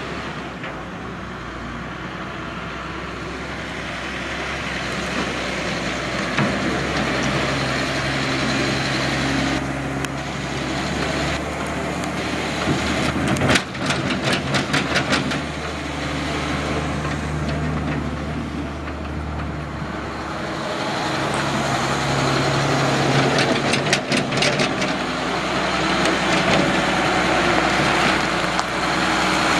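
Cummins 8.3-litre diesel engine of a 1995 Ford LT8000 mixer truck running steadily, its tone shifting a few times. A quick run of sharp clicks comes about fourteen seconds in and again near twenty-four seconds.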